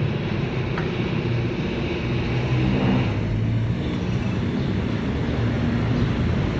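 Workshop air compressor running with a steady low hum, and a single light click about a second in.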